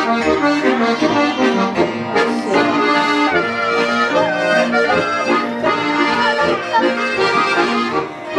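Traditional Alpine folk music played live on a diatonic button accordion (Steirische Harmonika), with a hammered dulcimer (Hackbrett) striking notes alongside. The tune runs at a steady, full level.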